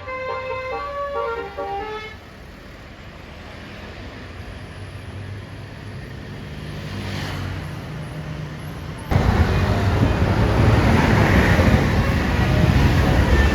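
A bus's telolet horn playing a multi-note melody that stops about two seconds in, followed by the bus's diesel engine running and growing louder as it approaches, with a sudden loud rush of traffic noise about nine seconds in as it passes close.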